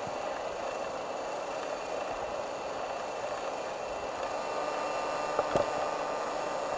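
Steady rushing of a fast-flowing river running over shallow riffles, with a brief knock about five and a half seconds in.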